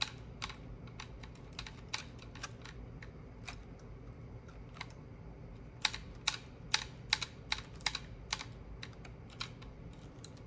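Irregular small clicks and clacks of plastic and metal parts as a battery-powered nail gun is handled and its mechanism poked at, with a quicker run of sharper clicks from about six to eight seconds in.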